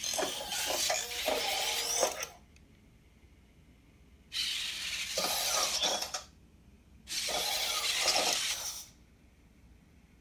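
Servo motors of a Robosen Optimus Prime robot toy whirring as it moves its arms and legs, in three bursts of about two seconds each with short pauses between them.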